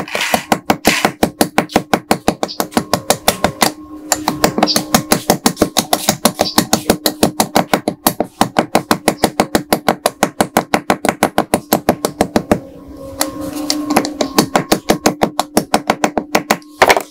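Rapid light hammer taps, about five a second, on a small rusted steel pistol part held in pliers against a steel block, metal on metal. The tapping pauses briefly about four seconds in and thins out around twelve seconds before picking up again.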